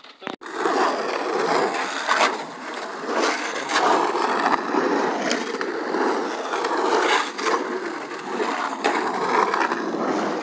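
Skateboard wheels rolling over the rough concrete of an empty swimming pool as the rider carves its walls: a steady rolling rumble that swells and fades every second or two, with a few sharp clicks.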